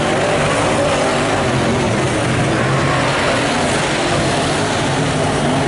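Engines of late model speedway sedans racing on a dirt oval, a loud continuous drone of more than one car with the pitch wavering as they pass.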